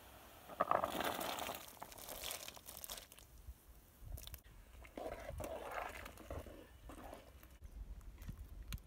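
Diced pumpkin tipped into a pot of boiling water with chicken feet, splashing in the first few seconds, followed by a metal ladle stirring and scraping in the pot.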